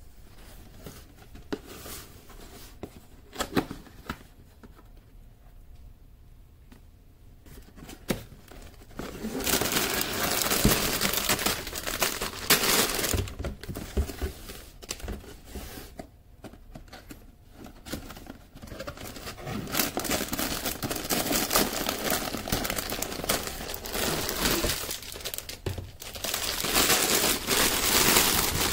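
A few light knocks of cardboard boxes being handled, then plastic bags of building bricks crinkling and rustling, loud from about a third of the way in and again near the end.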